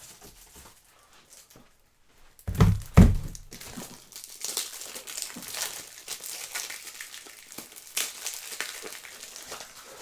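Two heavy thumps about two and a half seconds in, then steady crinkling and rustling of plastic packaging being handled and torn open, with small clicks.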